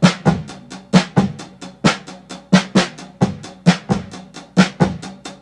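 Background music carried by a drum kit: a fast, steady run of snare hits with heavier kick-drum accents on the beat.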